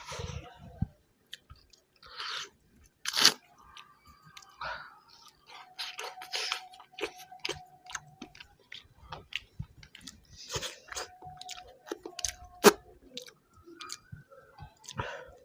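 A person chewing mutton kosha close to the microphone: irregular wet chewing, lip-smacking and small crunches. Two louder sharp clicks stand out, about three seconds in and again about twelve and a half seconds in.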